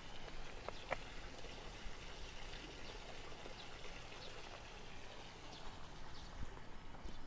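Footsteps of a person walking on a paved street, faint ticks roughly twice a second over a steady outdoor background hiss.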